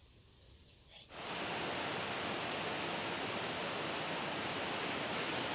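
Wind blowing through trees and grass: a steady, even rustling hiss that starts abruptly about a second in, after a near-quiet moment.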